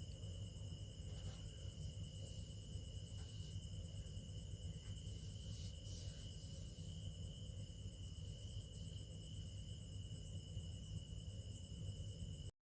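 A few faint clicks of laptop ribbon-cable connectors being handled and seated, over a steady low hum and a continuous high-pitched tone. The sound cuts off abruptly near the end.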